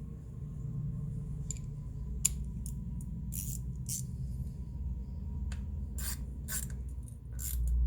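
Hand tools working small cover screws on a motorcycle engine: a dozen or so short metallic clicks and scrapes at irregular intervals, over a steady low hum.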